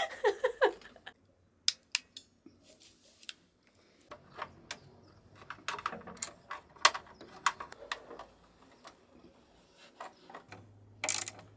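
Irregular light clicks, taps and rattles of wire ends and small tools being handled while wires are fastened to the terminals of a windlass relay box, with a louder click near the end.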